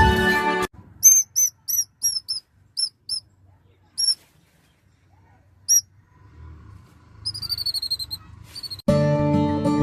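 Short, high bird chirps, singly and in quick pairs, then a fast run of about a dozen falling notes near the end. Music plays for a moment at the start and comes back near the end.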